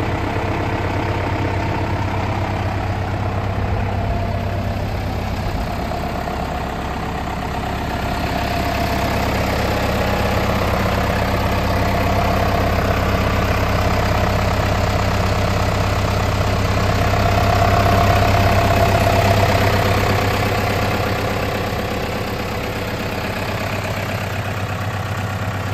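John Deere 5620 tractor's diesel engine idling steadily, its level swelling and easing a little over the stretch.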